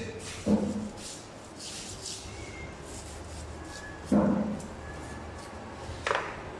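Heavy knife hacking into a whole tuna on a plastic cutting board: three dull thuds, about half a second in, about four seconds in and near the end.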